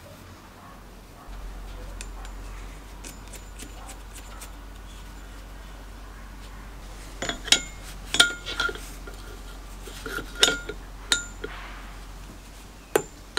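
Hand tools clinking against the metal flywheel and fan fins of a Robin EC10 two-stroke engine: about eight sharp clinks with a ringing tone, bunched in the second half, with one last clink near the end.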